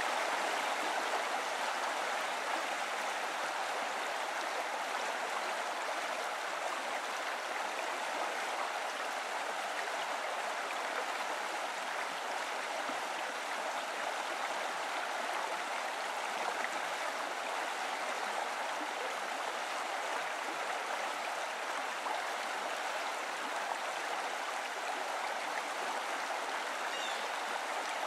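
Steady rush of a mountain stream, even and unchanging.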